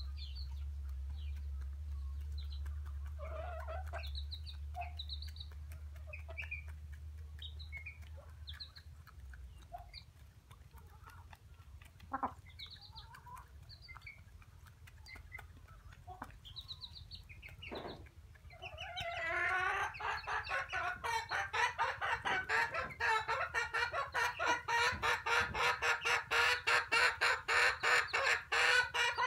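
Domestic hens clucking as they feed on scattered rice. A few short calls come first, then about two-thirds of the way in a fast, loud run of repeated clucks.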